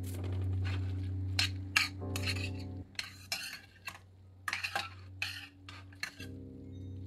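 Metal spoon stirring cooked elbow macaroni in a steel pot: irregular clinks and scrapes of the spoon against the pot, starting a little over a second in.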